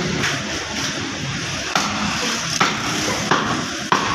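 Irregular knocks or taps, about six in four seconds, over a steady background hiss.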